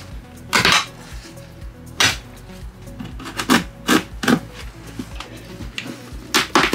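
Old carpet being ripped up off a wooden step in a series of short, sharp tearing pulls.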